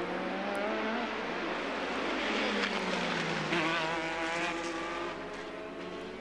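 1987 Formula 1 cars running at speed past the trackside microphones, their engine notes rising as they accelerate and dropping as each one passes, with more than one car heard at once.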